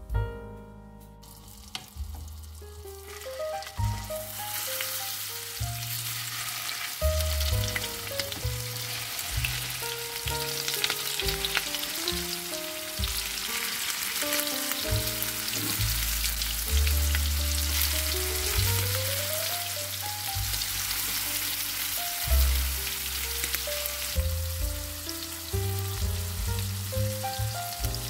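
Raw chicken tenders sizzling as they fry in hot butter and olive oil in a nonstick frying pan; the sizzle swells about four seconds in and eases off near the end. Background music plays underneath.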